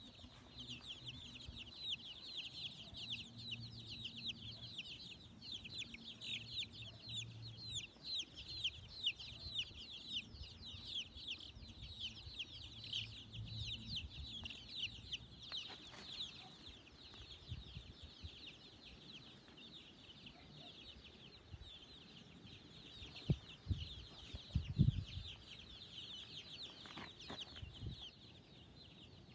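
A baby chick peeping rapidly and without a break, high, short, falling chirps: distress calls of a live chick caught in a constricting green anaconda's coils. The peeping grows fainter in the second half, and a few dull thumps come about two-thirds of the way through.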